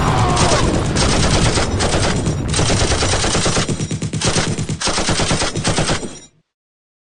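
Rapid automatic machine-gun fire, a continuous stream of shots, added as a sound effect. It cuts off suddenly about six seconds in, leaving dead silence.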